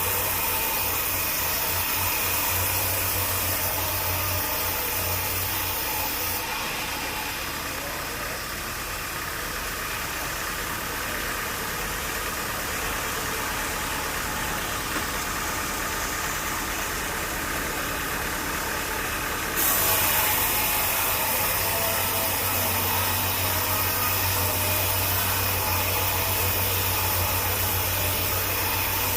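Steady noise of a running engine with a low hum. The tone changes abruptly about six seconds in and changes back about twenty seconds in.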